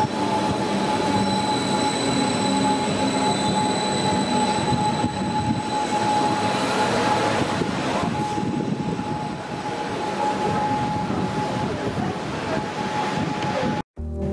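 ODEG Stadler KISS double-deck electric train running along the platform: a dense rumble of wheels and running gear with a steady high-pitched whine over it. It cuts off abruptly near the end.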